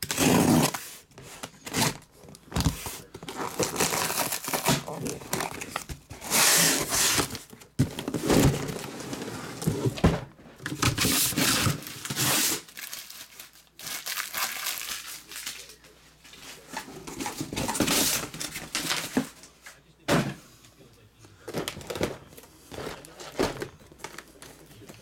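A taped cardboard shipping case being torn open by hand, with rustling and scraping cardboard. Boxes of trading cards are slid out and set down with light knocks. The handling gets quieter, with small taps, after about 20 seconds.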